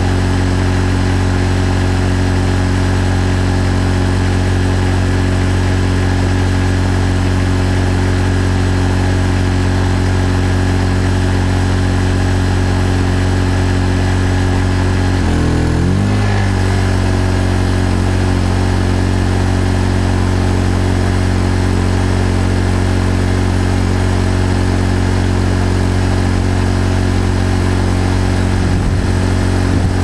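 Honda EU1000i inverter generator's engine running steadily under load. About halfway through, its pitch shifts briefly for about a second as the load from the air conditioner changes, then it settles back to steady running.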